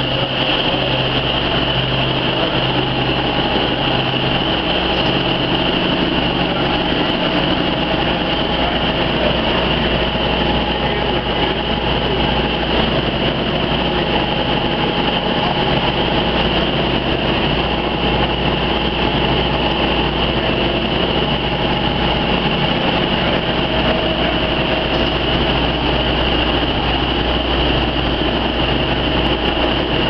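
Rubber extrusion and microwave vulcanization production line running: a steady machine hum with a low drone and an even high-pitched whine.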